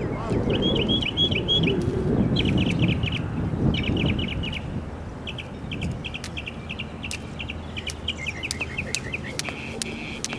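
A songbird singing phrases of quick, repeated high chirps, over low background noise that eases after about five seconds, with scattered sharp clicks in the second half.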